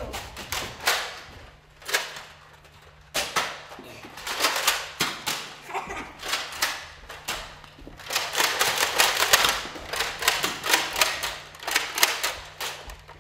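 Nerf foam-dart blasters firing, a string of sharp clicks and snaps coming in quick clusters, sparse at first and denser from about three seconds in.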